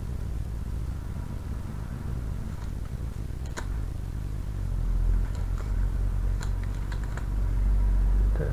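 Computer keyboard keys clicking: a single keystroke about three and a half seconds in, then a short run of several keystrokes near the end. A steady low hum sits under them throughout and is the loudest sound.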